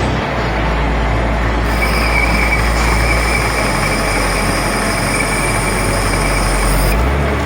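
Machine running with a steady noise and a high whine that sets in about two seconds in and stops shortly before the end.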